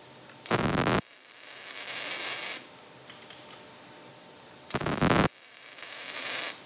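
MIG welder arcing on a steel pipe, twice. Each run starts with a loud crackle for about half a second, then settles into a softer sizzling hiss of the arc for a second or so.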